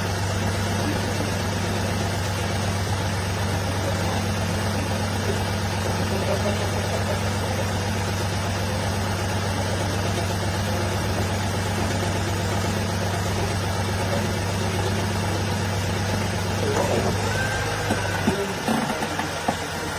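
Engine idling with a steady low hum; near the end the hum falls away, with a few short knocks.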